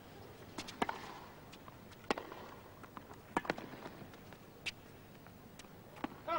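Tennis rally: the ball is struck back and forth by racquets, with sharp pocks roughly every second and a quarter and lighter bounces and footfalls between them, over a low crowd hush. The crowd starts to applaud right at the end.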